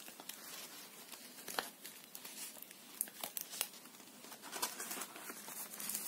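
Paper rustling and crinkling, with scattered light clicks and taps, as the pages and journal cards of a handmade paper journal are handled and turned.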